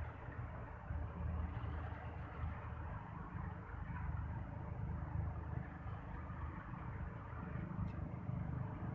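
Steady low outdoor background rumble, strongest in the bass and slowly rising and falling, with no distinct events.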